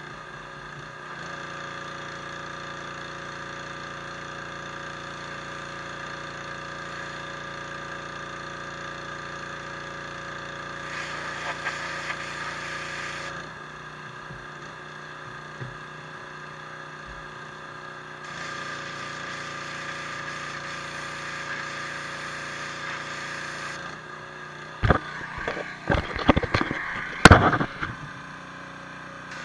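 Pressure washer running steadily, its jet hissing in two long sprays against the stone, then several loud sharp knocks near the end.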